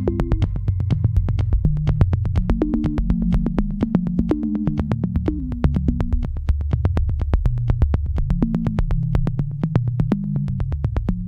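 Background electronic music: synthesizer bass lines over a steady, fast beat.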